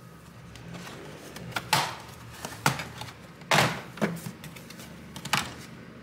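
The plastic bottom cover of an Acer Aspire 3 A315-23 laptop being unclipped and lifted off: five or so sharp plastic clicks and knocks, the loudest about three and a half seconds in.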